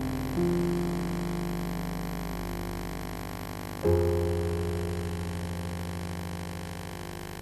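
Keyboard playing slow, low sustained chords. A new chord enters just after the start and a louder, deeper one is struck about halfway through, each left to ring and slowly fade.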